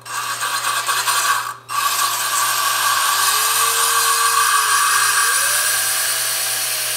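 Power drill spinning a valve by its stem against its seat in a 2001 Kawasaki KLR 650 cylinder head, with a steady whirring grind as it cleans corrosion off the valve. It stops for a moment about a second and a half in, then runs on steadily.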